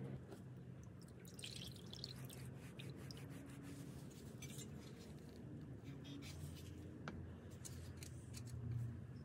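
Faint clicks and light taps of gloved hands handling wet metal parts, a bolt and then a fuel sending unit, over a low steady hum.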